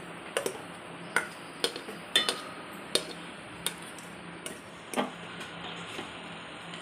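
A white plastic spoon knocking and scraping against a metal bowl and pot while cooked rice is scraped out and stirred: a run of sharp clacks about one every half second to second, the loudest a little past two seconds in.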